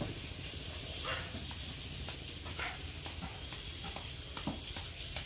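Pieces of rohu fish sizzling in hot oil as they fry, a steady hiss with scattered small pops and crackles.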